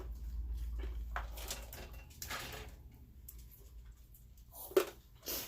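Kitchen work sounds while a lasagna is being assembled: scattered light scrapes and taps of dishes and utensils being handled, with one sharp knock near the end.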